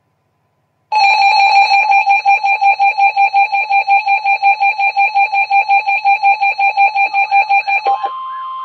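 Electronic emergency alert tones. A loud, buzzy beep pulses rapidly, starting about a second in; near the end it gives way to a steady higher tone with a repeating warbling sweep under it.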